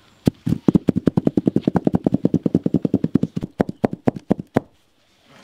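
Wide metal basin full of cake batter being knocked rapidly against the ground, a fast run of about nine sharp knocks a second lasting about four seconds, settling the batter level.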